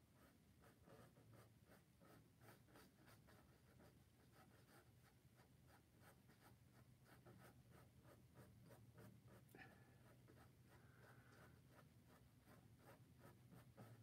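Faint, quick scratching strokes of a paintbrush dabbing acrylic paint onto stretched canvas, about three strokes a second.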